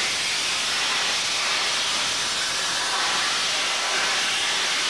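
A steam locomotive blowing off steam: a loud, steady hiss with no chuffing beat.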